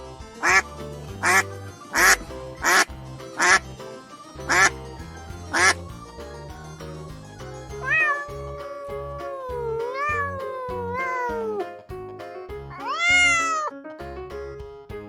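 A duck quacking seven times in quick succession, then a cat meowing: one long drawn-out meow whose pitch wavers and falls, and a shorter meow that rises and falls, over background music.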